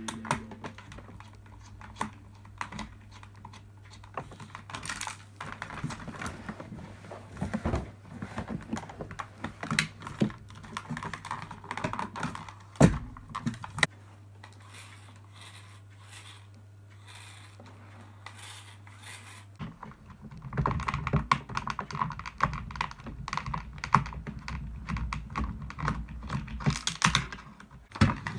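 Irregular clicks, taps and light clatter of hard plastic toy-robot parts being handled and pulled apart, with one sharp knock about halfway through and busier clattering in the last third.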